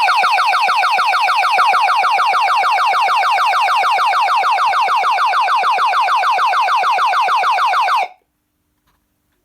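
Electronic alarm siren on an ADE Karizma Plus intruder alarm system sounding loudly as a fast run of falling sweeps, about seven or eight a second. It cuts off suddenly about eight seconds in.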